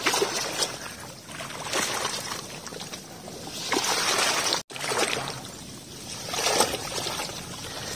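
Water sloshing and swishing around a wader's legs as he pushes through shallow flooded vegetation, rising and falling in swells every second or two. The sound cuts out for an instant a little past halfway.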